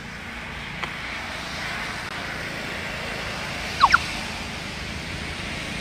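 Steady hum of road traffic, with two quick, high, rising chirps close together about two-thirds of the way through.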